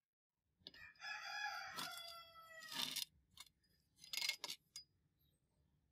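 A rooster crowing: one long call of about two seconds that drops in pitch at the end, followed about a second later by a shorter call.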